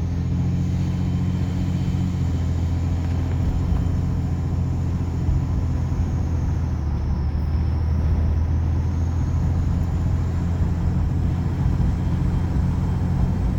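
2007 Ram 2500's 5.9 Cummins inline-six turbo diesel running steadily under way, with a thin, high whistle from the turbo area that drifts down in pitch about halfway through and then climbs back. It is a different tone from the turbo's own sound, and the owner suspects an intake leak, a leaking gasket or a dirty intake.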